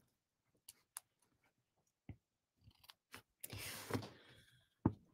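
Faint handling of ribbon and cardstock, light clicks and a brief rustle, then a sharp snip of scissors near the end as the ribbon ends are trimmed.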